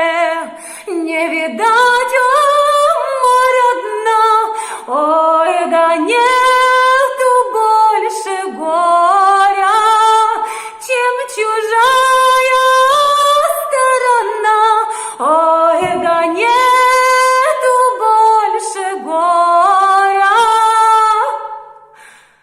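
A woman singing a Russian folk song solo and unaccompanied, in long held phrases with notes that slide and waver between pitches. The singing fades away near the end.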